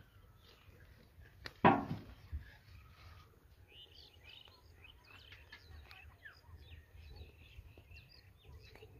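Small birds chirping in many short, quick calls, with one sudden loud thump a little under two seconds in.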